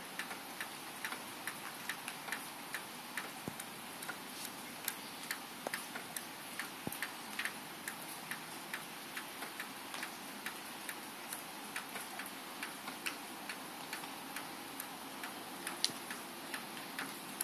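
Light ticking, about two sharp ticks a second, over a faint steady hiss.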